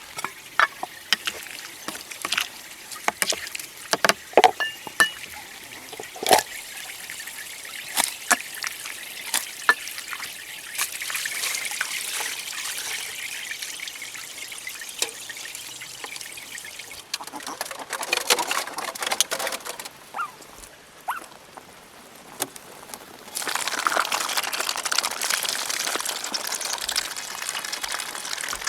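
Water pouring and trickling, with many sharp clicks and knocks through the first third and a steadier rush of water near the end.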